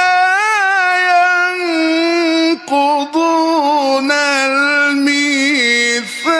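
Male Quran reciter chanting in the melodic mujawwad style, holding long ornamented notes that step down in pitch, with two short breaks near the middle.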